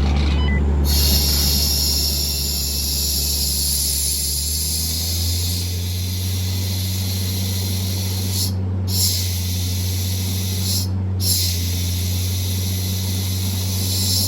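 Compressed air hissing steadily out of a blow gun into a 4-inch underground pipe to blow it clear, over the steady low drone of the running air compressor. The hiss starts about a second in and cuts out briefly twice.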